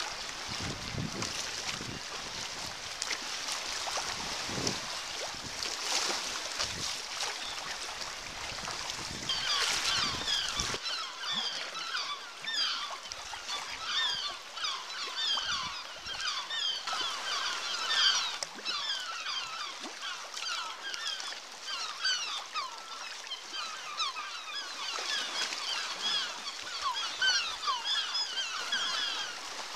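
Wind and water rushing for about the first ten seconds, then a dense chorus of seabirds calling from a cliff colony: many short, falling calls overlapping continuously.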